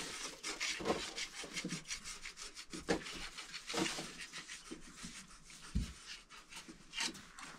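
Quick, irregular scraping strokes of a hand tool rubbing on a hard surface, with a sharper knock about three seconds in and a low thud near six seconds.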